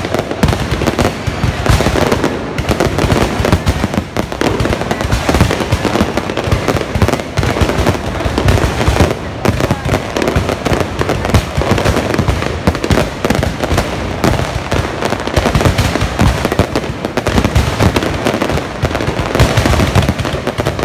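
Aerial fireworks display going off in quick succession: a loud, dense, unbroken run of bangs and crackles.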